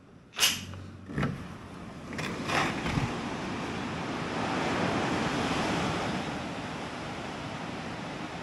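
Two sharp knocks in the first second or so, then a steady rush of ocean surf and wind on the microphone that swells in the middle and eases off again.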